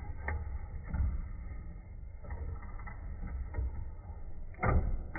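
Brother FS-40 computerized sewing machine running and stitching through fabric: a fast, steady mechanical clatter of the needle with the motor's hum, louder briefly near the end.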